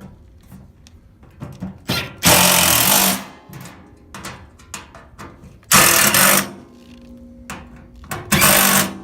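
Power drill driving screws to fasten a washer pedestal's rear plate: three short runs, each under a second, about two, six and eight and a half seconds in.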